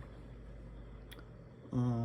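1931 RCA Victor R7 tube radio switched on for its first test run, giving a faint, steady low hum and hiss, with a single faint click about a second in.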